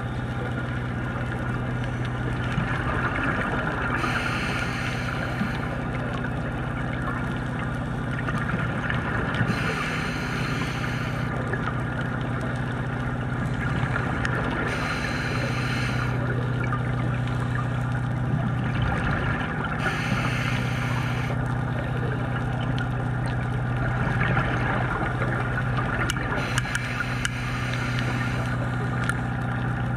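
Underwater sound of a scuba diver's regulator exhaling bubbles in bursts of about a second and a half, five times, roughly every five to six seconds, over a steady low hum.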